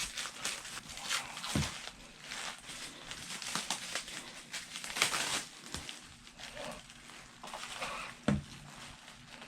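Plastic wrapping crinkling and rustling as it is handled and pulled off, with two soft thumps, one about a second and a half in and one near the end.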